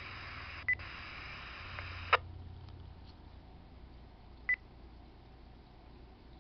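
RadioShack scanner hissing with static after a transmission. The hiss cuts off with a sharp squelch click about two seconds in, leaving faint background hiss, and short high beeps sound twice, near the start and later.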